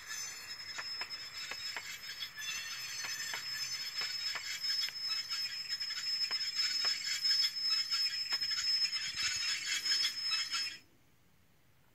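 Sound decoder in an HO-scale model caboose playing railroad clatter through its small speaker: irregular clicks and rattling over a thin steady high whine, turned up to about half volume. It cuts off suddenly near the end.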